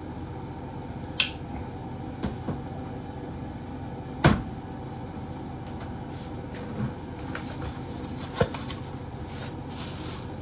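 Handling noise from unpacking a pocket knife: a handful of sharp clicks and knocks, the loudest about four seconds in, with soft plastic-bag rustling near the end.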